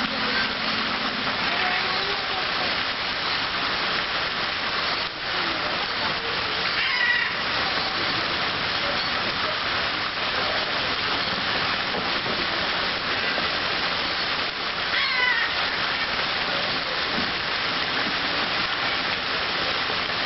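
Fountain jets spraying and splashing down into a pond: a steady rush of falling water. Twice, about seven and fifteen seconds in, a short high wavering call sounds over it.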